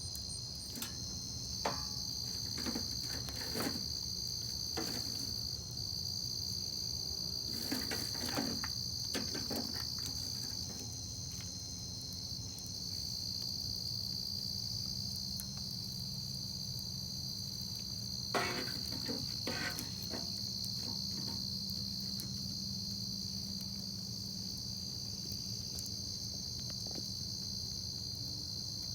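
Crickets chirping in a steady, unbroken high trill, with a campfire crackling and popping now and then, in small clusters of clicks.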